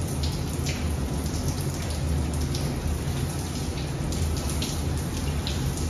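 Overhead rain shower running, water pouring down onto a person and spattering on the tiled stall, steady throughout, with a low hum underneath.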